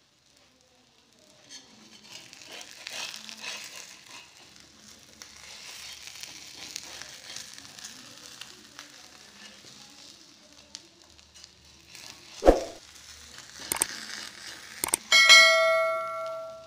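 Omelette sizzling in a hot pan, with light scrapes and clicks from a spatula and a single loud thump about two-thirds of the way through. Near the end comes a click and a ringing bell ding from a subscribe-button animation.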